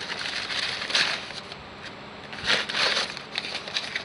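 Packaging crinkling and rustling in two bursts, about half a second in and again around two and a half seconds in, as a new bushing is unwrapped by hand.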